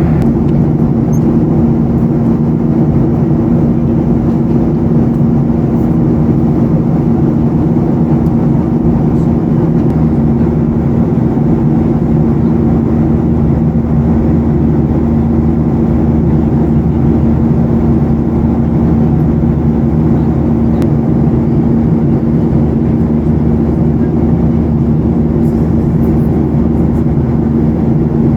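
Cabin noise inside a Boeing 737-800 airliner in flight: a steady drone of the CFM56 engines and rushing air, with one constant low hum running through it.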